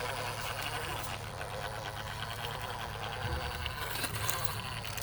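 Brushless motor and gear drivetrain of a small RC crawler whirring steadily as it crawls under load.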